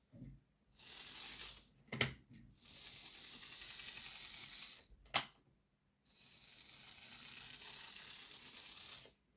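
Lima OO gauge Class 08 shunter's motor running on a test track in three runs of a few seconds each, with a harsh grinding rattle like a coffee grinder and short clicks between the runs. The owner hears something rattling in the motor and suspects a badly balanced, vibrating armature or a loose magnet.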